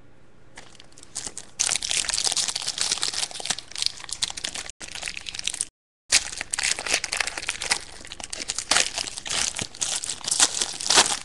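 Plastic shrink wrap crinkling and tearing as a sealed box of trading cards is unwrapped and opened, with continuous crackling handling noise. The audio cuts out briefly twice near the middle.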